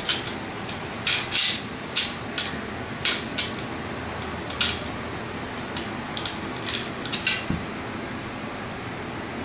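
Steel parts of a Springfield M1A rifle clicking and clinking as it is field stripped. The clicks come irregularly, most of them in the first half, and stop about three quarters of the way through.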